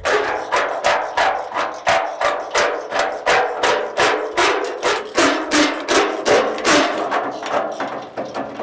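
Steady hammer blows on metal, about three a second, each with a short ring, tapping a chassis bush into a leaf spring eye to test its fit.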